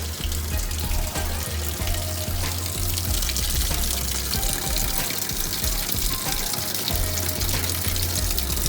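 Water rushing steadily into a Samsung washing machine through its newly replaced inlet solenoid valve: the machine is filling with water again.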